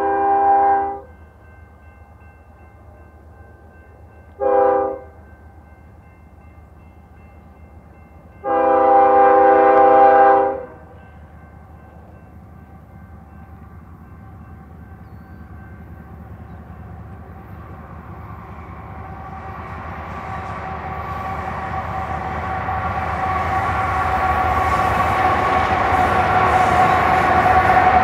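BNSF freight locomotive horn blowing: a blast ending about a second in, a short blast near five seconds and a longer two-second blast around nine seconds. Then the diesel locomotives and railcars of a double-stack container train grow steadily louder as they approach and pass.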